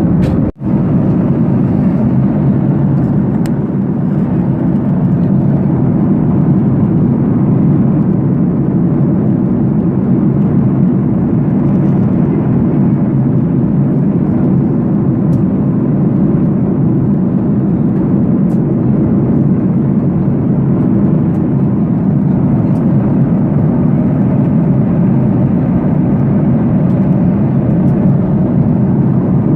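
Steady engine and airflow noise inside a passenger airliner's cabin, briefly cutting out about half a second in.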